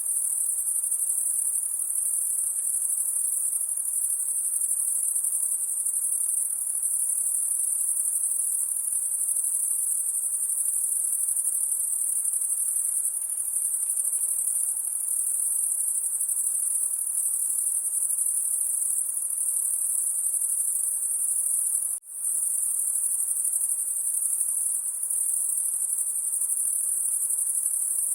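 Night insects calling in a dense, steady, high-pitched shrill chorus, dropping out for an instant about 22 seconds in.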